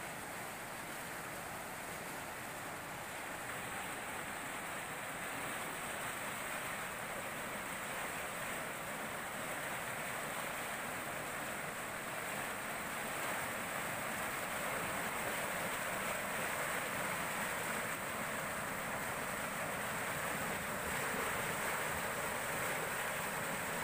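Fast river water rushing and churning through a weir's sluice gate, a steady noise that grows gradually louder.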